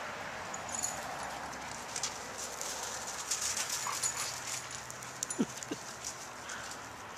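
Dogs playing with a puppy on gravel: paws scuffing and crunching on the stones as they scramble, with a few short dog whimpers in the middle.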